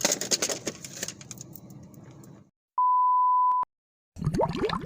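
A single steady electronic beep at one pure pitch, lasting just under a second, set between stretches of dead silence. Before it, a noisy outdoor stretch with small clicks cuts off abruptly.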